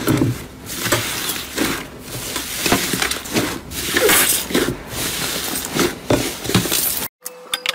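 Thick green iceberg-style slime squeezed, folded and pulled apart by hand in a glass bowl: irregular squishing and crackling, about two squeezes a second. It cuts off suddenly near the end.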